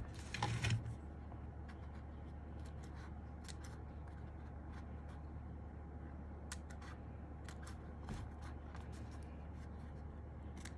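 A blade cutting through a thin foam sheet: one short rasping cut just after the start, then faint scattered ticks of handling over a steady low hum.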